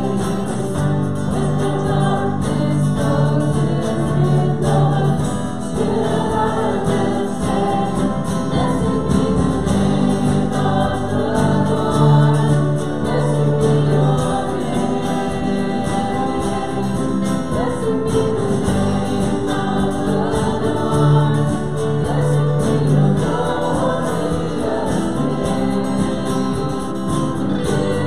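A group of voices singing a hymn together, with held notes over a steady instrumental accompaniment.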